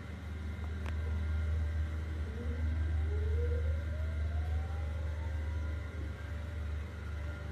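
A steady low rumble, with a machine motor whine that rises in pitch for a couple of seconds in the middle.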